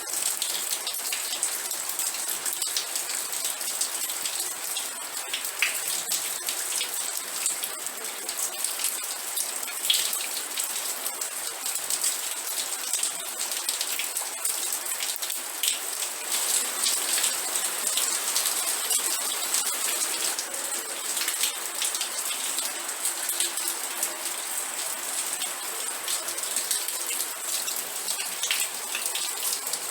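Rain falling steadily, a dense hiss full of individual drop hits on a surface. A thin, steady high-pitched tone runs underneath.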